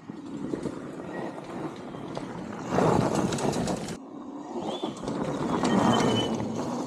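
Electric dirt bike, a Yamaha YZ85 frame converted to a 72 V mid-drive motor, riding past on a dirt trail: rough tyre and drivetrain noise with no engine note. The noise swells as the bike comes close, breaks off suddenly about four seconds in, then builds again.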